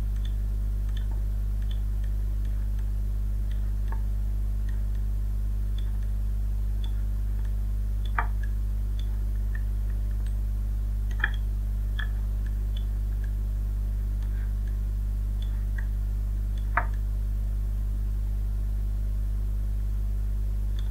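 Steady low hum under occasional computer mouse clicks, with three louder clicks about eight, eleven and seventeen seconds in.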